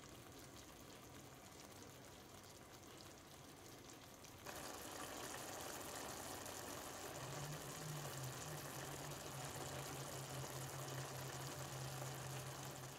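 Thick vegetable stew of eggplant, tomato and peppers bubbling at the boil in a frying pan, a soft, even bubbling that starts about four and a half seconds in after near silence. A steady low hum joins it about seven seconds in.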